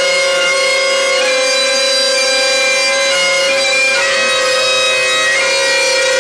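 Bagpipes playing: a steady drone under a chanter melody whose notes change every half second or so.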